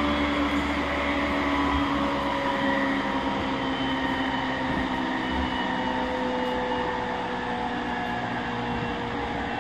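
Interior running sound of a refurbished JR East E231 series 1000-number electric train: traction motor and inverter whine over wheel-and-rail rumble. The whine falls gently in pitch and the sound slowly gets quieter as the train slows.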